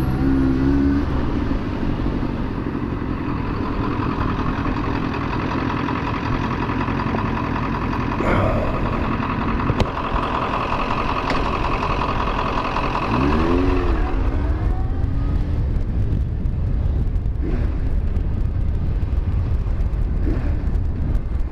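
Yamaha FZ1's inline-four engine running at low speed in slow traffic, with a brief rise and fall in revs about thirteen seconds in.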